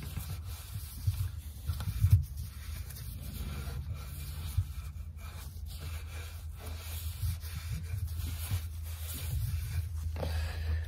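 A cloth wiping sanding dust off a sanded wooden chair leg: irregular rubbing with a few light knocks, the sharpest about two seconds in, over a steady low hum.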